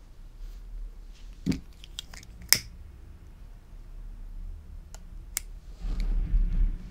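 Sharp clicks about a second apart, from a lighter being struck to melt the base of an organza ribbon petal held in tweezers. Fainter clicks follow, then a low rumble of handling near the end.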